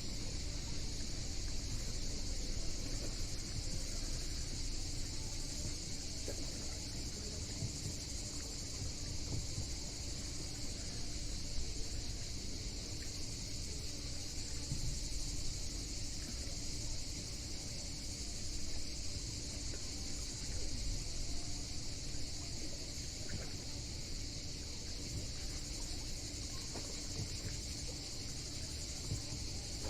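Steady, high-pitched chorus of summer insects, unbroken throughout, over a low, continuous rumble.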